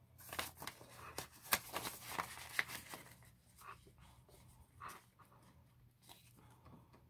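Paper banknote and clear plastic binder pouch rustling and crinkling as a $10 bill is slid into the pouch and pressed flat. A dense run of crackles over the first three seconds, then a few scattered clicks.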